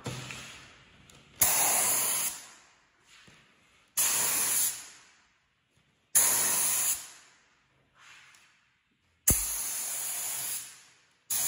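Compressed-air paint spray gun (DeVilbiss Tekna) hissing in five short blasts of about a second each, one per spray pass, each starting sharply when the trigger is pulled and tailing off when it is released.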